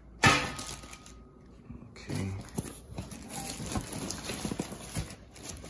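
A plastic-wrapped metal grill part set down with a sharp clang about a quarter second in, ringing briefly. Then plastic wrap crinkles and cardboard packing rustles as parts are handled, with small knocks.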